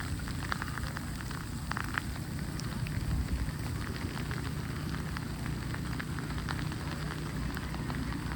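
Outdoor snowstorm ambience: a steady low rumble with many scattered light ticks and crackles.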